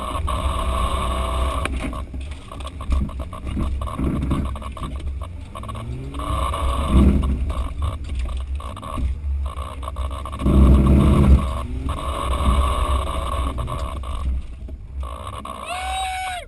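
Off-road 4x4's engine revving up and down as it is driven over a rough dirt track, with scattered knocks and rattles from the jolting vehicle. The loudest revs come about seven seconds in and again from about ten and a half to eleven and a half seconds.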